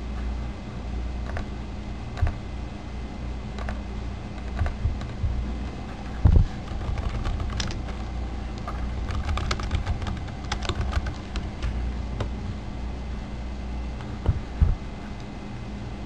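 Computer keyboard typing: irregular key clicks, busiest in the middle, over a steady low electrical hum. Two heavier thumps land about six seconds in and near the end.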